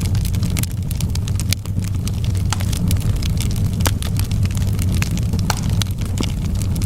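Campfire burning: a steady low rumble of the flames with frequent sharp, irregular crackles and pops.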